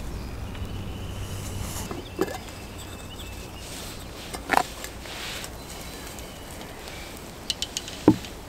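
Forest outdoor ambience with faint, thin bird calls in the background. Three short sharp knocks or clicks stand out, about two seconds in, halfway through and near the end, with a quick run of small ticks just before the last one.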